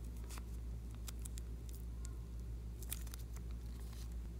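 Faint sticky crackles and small pops of glossy liquid slime glue squeezed from a plastic piping bag into a pool in a glass dish, in scattered clusters over a low steady hum.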